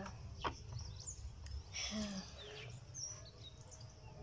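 Kale leaves being handled in a plastic basin of water, with light rustling and a faint splash about two seconds in. Birds chirp faintly over a low steady rumble.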